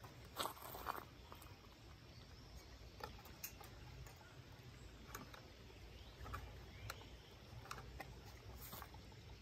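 Faint, irregular metal clicks and taps from hand tools on the Satoh S370 tractor's engine as the crankshaft is turned over by hand to check that it is not seized, with a couple of louder knocks about half a second in.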